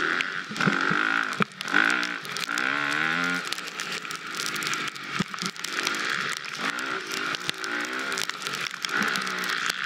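Husqvarna FX 350 dirt bike's four-stroke engine being ridden off-road, its revs rising and falling again and again under the throttle. Frequent sharp clicks and knocks from the bike and terrain run through it.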